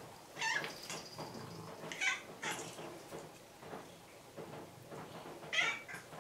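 Orange-and-white domestic cat meowing insistently, as if demanding something: a meow about half a second in, two more around two seconds, and a louder one near the end.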